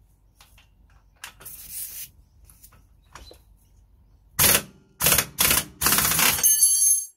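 Air-powered impact wrench with a 17 mm socket hammering on a rear suspension bolt in four bursts, a short one about four and a half seconds in and three more close together, the last the longest, breaking the bolt loose. Before it come light clicks and rattles as the tool is set in place.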